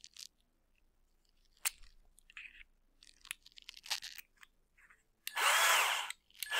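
Light clicks and taps of small parts being handled, then near the end a Hyper Tough cordless drill's motor runs for about a second, its whine rising and falling, and starts again at the very end.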